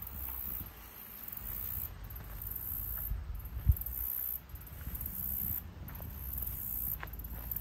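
Insects chirring high-pitched in repeated bursts about a second long, over a low rumble, with a single thump about three and a half seconds in.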